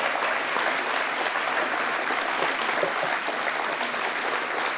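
Conference audience applauding in a large hall, steady hand-clapping that holds at an even level throughout.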